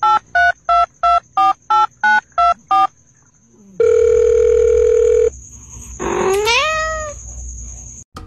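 About nine short beeps like telephone keypad tones, roughly three a second, then a steady tone for about a second and a half. About six seconds in comes a single cat's meow that rises in pitch and then eases down.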